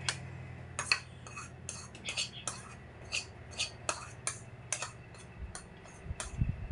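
Cutlery clinking and scraping against a small ceramic bowl while eating: about fifteen quick, irregular clinks.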